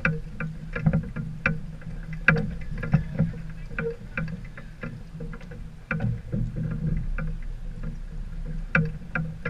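Sailboat under way: irregular sharp knocks and splashes, a few each second, over a steady low rumble.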